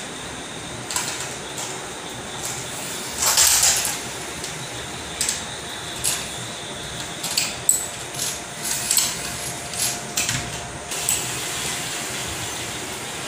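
Small plastic toy vehicle clicking and rattling on a hard tiled floor as it is handled and pushed along: short scattered knocks, with one louder, longer rattle about three seconds in, over a steady background hiss.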